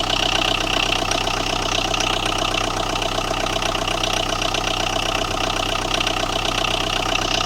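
Tata Indigo diesel engine idling steadily with a knocking clatter. A blown ECM fuse is behind it: once the fuse is replaced the knocking stops.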